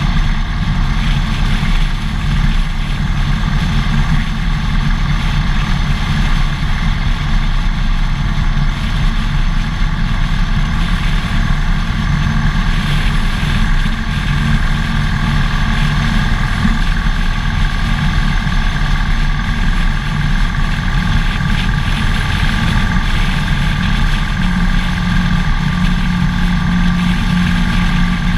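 Harley-Davidson Dyna Fat Bob's air-cooled V-twin engine running steadily at freeway cruising speed, heard from a camera mounted on the bike. A steady low engine note grows stronger near the end.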